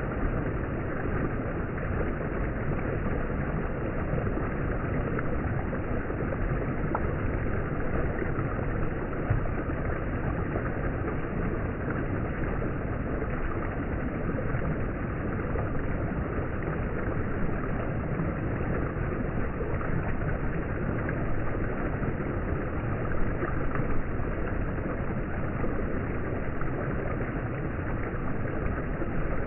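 Shallow stream water rushing steadily over rock ledges and around stones in a small cascade.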